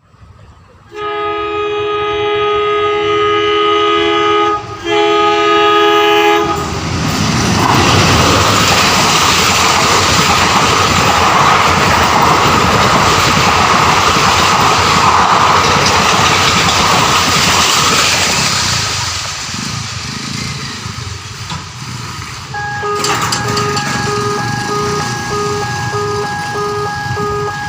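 Indian Railways train horn sounds two long blasts, the first about three and a half seconds, the second shorter, then the train runs past with a loud rush of wheel and rail noise lasting about twelve seconds. Near the end an electronic warning beep starts, pulsing about twice a second.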